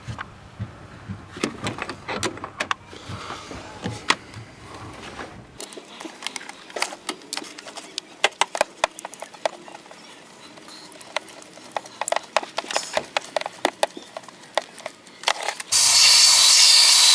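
Irregular clicks and taps of hand tools on metal as a starter-area bolt and sensor on a BMW engine are worked loose. About a second and a half before the end, a loud, steady hiss starts suddenly and keeps going.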